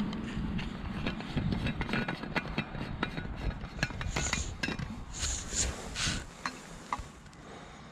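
Stopper of a stainless steel vacuum flask being unscrewed and handled: a run of small clicks, scrapes and rubs from the threads and the metal body.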